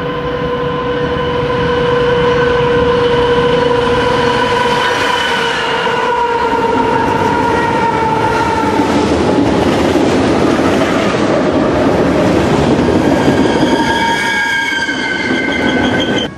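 Freight train passing close by: the diesel locomotive's horn sounds one long chord whose pitch drops as the engine goes past, then the freight cars rumble and clatter by. A high wheel squeal rises over them near the end.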